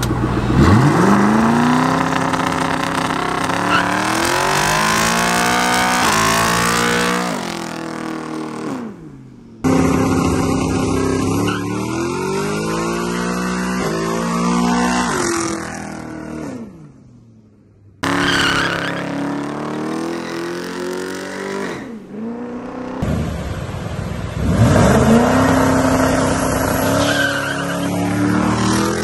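Twin-turbo Ford Mustang's Coyote 5.0 V8 at full throttle on a burnout and launches, with the rear tyres spinning and squealing. The engine pitch climbs in long sweeps and drops back several times, in separate takes cut one after another.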